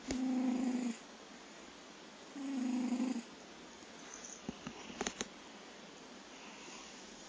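A sleeping cat snoring: two buzzy snores, each just under a second long and about two seconds apart. A few faint clicks follow about halfway through.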